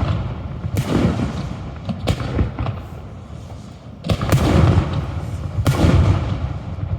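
Aerial fireworks shells bursting: a series of about five sharp booms a second or so apart, each trailing off in a rumble.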